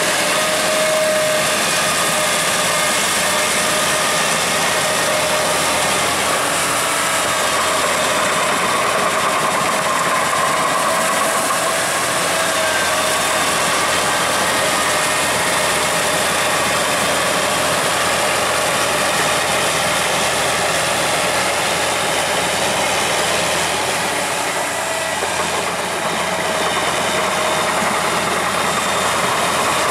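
Tracked tractor's engine running steadily under way, with a steady whining tone over the engine noise; the level dips briefly about 25 seconds in.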